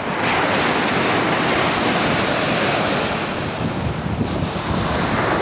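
Wind buffeting the microphone over the steady wash of surf on a sandy beach, growing a little louder just after the start.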